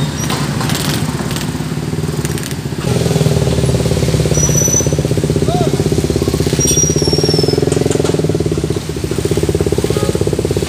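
Small motor scooter engines running in a jammed queue of motorbikes. About three seconds in a nearby engine becomes louder and keeps running with a steady pulsing beat.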